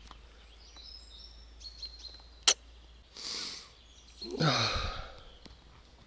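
A man breathing in sharply and then letting out a long voiced sigh, with faint birdsong early on and a single sharp click about two and a half seconds in.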